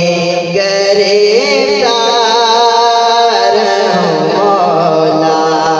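A man's voice singing an Urdu naat, drawing out long notes that waver and bend in pitch without a pause.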